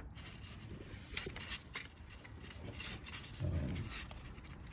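Faint, scattered clicks and light metal-on-metal handling noises from hand tools working on a steering box adjusting bolt. A short, low sound of about half a second comes about three and a half seconds in.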